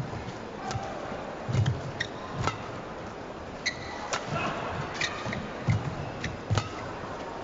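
Badminton rally: sharp cracks of rackets striking the shuttlecock, roughly once a second, with dull thuds of the players' footfalls on the court.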